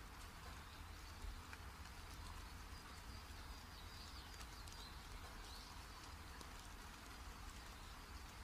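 Near silence: a steady low hum with a few faint high chirps and a couple of soft clicks.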